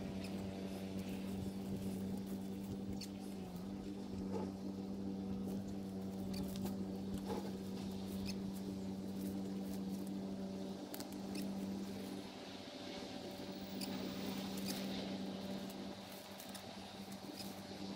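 Light clinking and scratching of chicken wire mesh being handled and pulled against a post, over a steady low mechanical hum.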